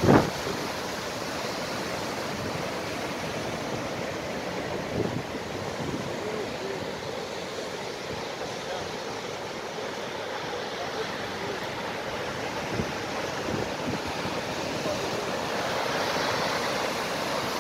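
Rough sea surf breaking and churning against rocks at the foot of a sea cliff: a steady rush of white water that swells a little near the end. A sharp thump sounds right at the start.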